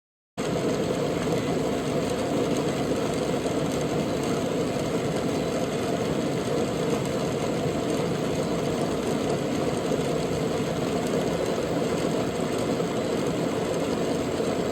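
Hubsan H501S drone's brushless motors and propellers running at a steady speed, a constant mechanical hum that cuts in abruptly just after the start.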